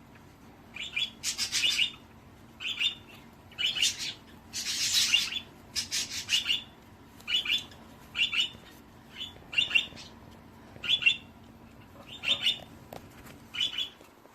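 A bird giving a string of short, high chirping calls, about one a second, with two longer, louder calls in the first third.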